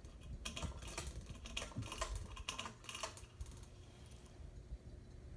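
Hampton Bay Hugger ceiling fan running on its high speed: a steady low rumble with a faint hum, and a run of irregular light clicks over the first three seconds or so.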